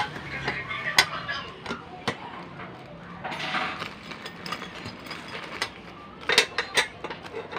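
Sharp metal clicks and knocks as steel pedal brackets of a sewing machine stand are handled and fitted together: one about a second in, another about two seconds in, and a quick cluster of three near the end, with a brief rustle about halfway through.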